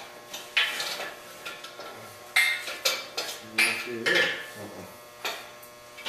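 Irregular metallic clanks and clinks, about six in a few seconds, as steel engine hoist parts and hardware are handled during assembly.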